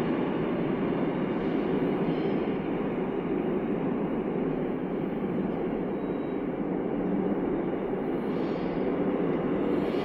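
Steady running noise of a Seoul Subway Line 7 train at the platform, heard through closed platform screen doors.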